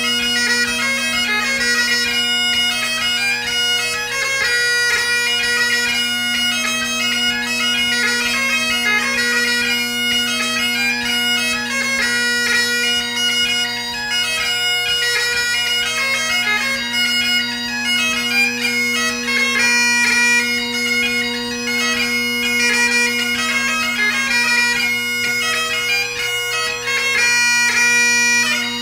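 Great Highland bagpipe played solo in a light-music (ceol beag) set: steady drones sounding under a quick-changing chanter melody.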